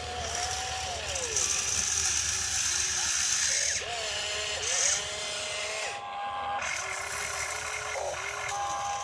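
Toy RC excavator's small electric motors whining as the boom and bucket move, the whine rising, holding and falling in pitch several times. A short steady beep sounds about six seconds in.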